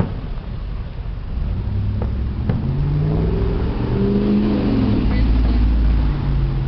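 A car driving by, its engine note climbing and then falling as it passes, over a low rumble. A few sharp pops come in the first few seconds.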